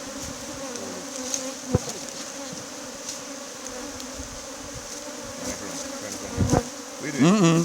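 Steady buzzing hum of a mass of Africanized honeybees (Apis mellifera scutellata) around an opened hive, with two short knocks, one about a second and a half in and one near the end.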